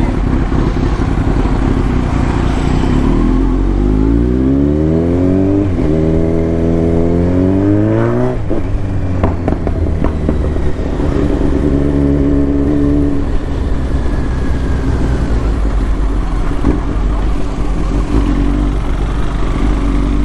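Motorcycle engine under way, accelerating with its pitch climbing steadily for several seconds, then dropping sharply about eight seconds in and running at a fairly even note after that.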